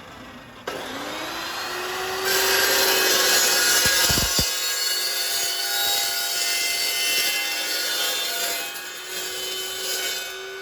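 Circular saw with a carbide-tipped blade for steel, starting with a rising whine as it spins up. From about two seconds in it is cutting steel, a loud, bright grinding noise with ringing overtones. The noise eases near the end while the motor keeps running.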